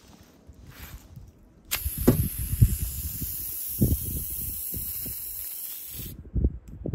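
A homemade wooden slingshot for arrows firing: a sharp snap as the rubber bands release the arrow, then a steady high hiss that cuts off suddenly about four seconds later, with several dull thumps scattered through it.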